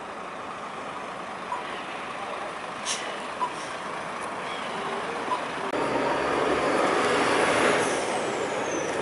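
Rubbish truck working: a steady mechanical running noise with faint short blips about every two seconds and a sharp clack about three seconds in. About two-thirds of the way through it turns louder and fuller, with a high squeal falling in pitch near the end.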